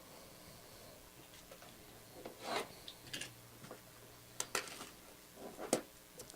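Faint, irregular rubbing and scraping of a cardboard product box and its packaging being handled, in a few short scuffs.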